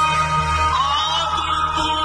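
Music: a song with a wavering sung melody over sustained tones and a steady low bass.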